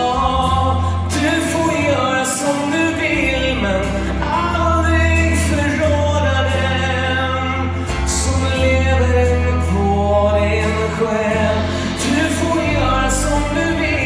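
Large choir and live band performing a pop song: singing over bass, piano and drums, with cymbal crashes now and then.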